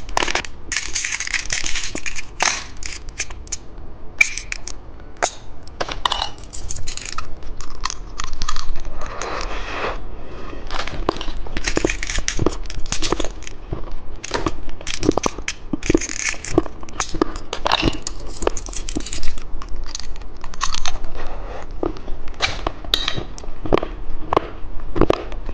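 Plastic candy packaging being torn open and crinkled, with many sharp clicks and crunches throughout.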